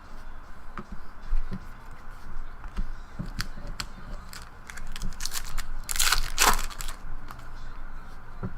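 Trading-card pack wrapper crinkling and tearing, with light clicks and rustles of cards being handled. The tearing is loudest in a short burst about six seconds in.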